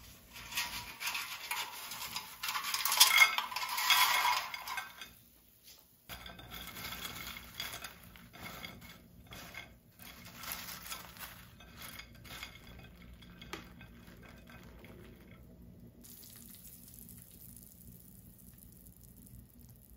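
Crisp seasoned fries clattering onto a ceramic plate, loudest about three seconds in. Lighter clicks and rustles follow as fingers arrange the fries on the plate. Near the end there is a faint soft slide as meat chili sauce is spooned over them from a pan.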